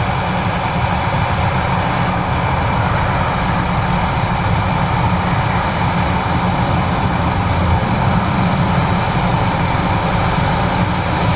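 John Deere 9570STS combine harvester running steadily while harvesting corn: a continuous deep engine and machinery drone with no change in pace.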